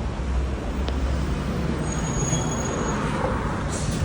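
Steady low rumble of a motor vehicle running close by, with a brief high-pitched whine about two seconds in.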